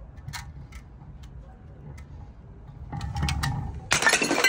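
A large glass bottle with liquid filling knocking down concrete steps, then shattering about four seconds in: a loud crash of breaking glass with splashing, after a few light ticks earlier on.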